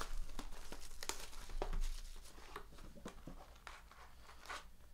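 A sealed box of Donruss Optic basketball cards being torn open by hand: plastic wrapping crinkling and cardboard tearing, with irregular crackles and rustling that ease off in the last couple of seconds.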